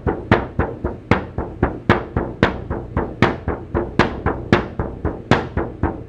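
A 10-inch shaman frame drum struck steadily with a fur-covered stick beater, about four strokes a second with some louder accents. Each stroke leaves a short ringing vibration in the drum head, which rings freely because the drum is held from the back without touching the head.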